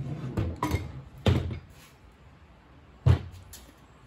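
Dull knocks and clunks of tools and parts being handled during swingarm bearing removal: a few in the first second and a half, then a single loud clunk about three seconds in.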